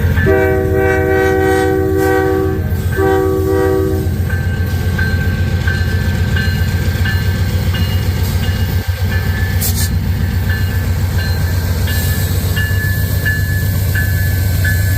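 Freight locomotive air horn sounding two blasts, a long one of about two and a half seconds and then a shorter one about a second long. After that the steady low rumble of the passing freight train runs on, with a regular clicking of wheels over the rails.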